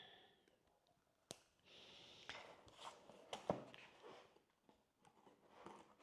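Faint handling sounds: a cardboard parcel set down on a wooden tabletop with a light knock, then scattered clicks and soft rustles as a Victorinox Pioneer X Swiss Army knife is handled and brought to the box's packing tape.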